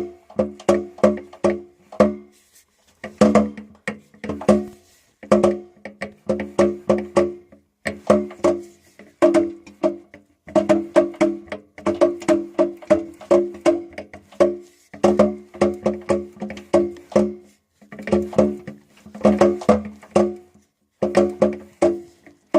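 Chrysler 440 big-block V8 knocking from a flex plate whose bolts to the crankshaft are all loose. Sharp knocks come several a second in runs a second or two long, with short gaps between, and each knock rings with a hollow, wood-block-like tone.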